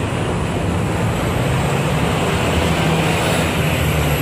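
Steady city street traffic: a continuous drone of vehicle engines and tyres, with a low engine hum and a faint high whine that slowly rises.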